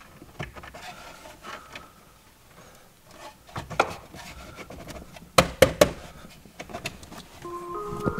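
Hard plastic interior trim parts knocking, clicking and rubbing as a piece is worked into place by hand, with three sharp clicks about five and a half seconds in. Music comes in near the end.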